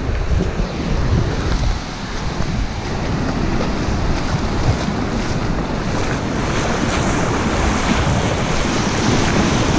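Small surf waves breaking and washing over the shallows, with wind buffeting the microphone in a low rumble.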